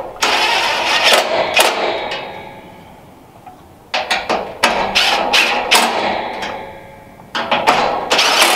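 Cordless DeWalt drill driving screws into a steel diamond-plate floor, in three bursts of a few seconds each, with sharp clicking as the screws run in and seat.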